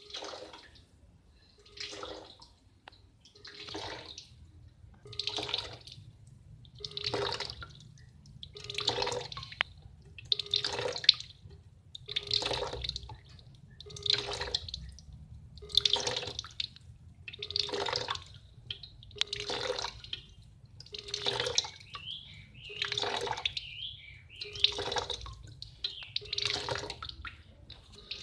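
Water sloshing and gurgling in regular surges, one roughly every second and three-quarters, about sixteen times in all, louder after the first few.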